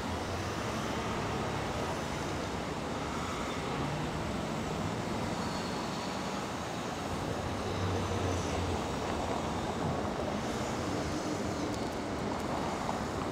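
Street traffic: cars passing close by over a steady wash of road noise.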